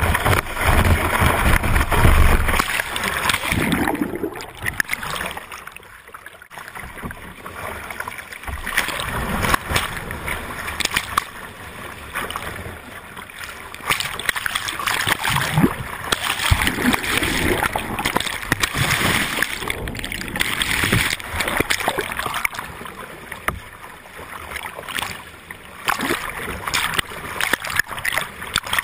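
Whitewater rapids rushing and splashing over a kayak's deck and the camera mounted on it, with many sharp splashes and the loudness surging and falling as waves break over the boat.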